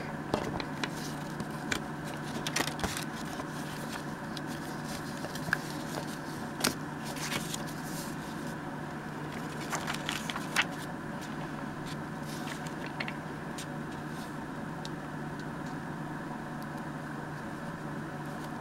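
Envelope paper handled by hand: scattered rustles and light taps, most of them in the first ten seconds or so, over a steady low hum.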